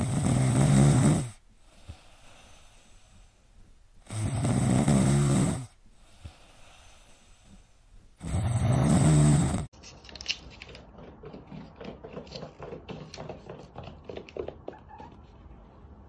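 Sleeping cat snoring loudly: three long snores, about four seconds apart. After the third, only faint scattered light taps and clicks.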